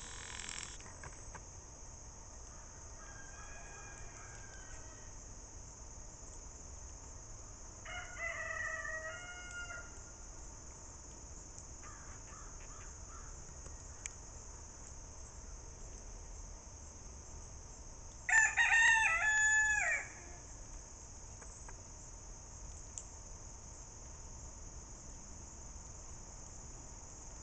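A bird's call, pitched and held for one to two seconds, comes four times, faint at first and loudest about two-thirds of the way through. Under it runs a steady high drone of insects.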